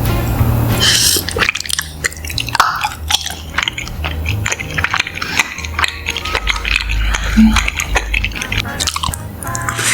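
Close-miked mukbang eating: many quick crunching bites and wet chewing sounds, clicking and smacking in rapid succession.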